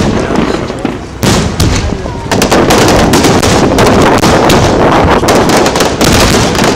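Aerial fireworks exploding: a few separate bangs, then from about two seconds in a dense, continuous barrage of rapid bangs and crackle.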